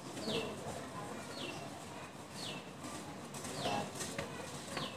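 A bird calling over and over: a short chirp that falls in pitch, repeated about once a second, five times.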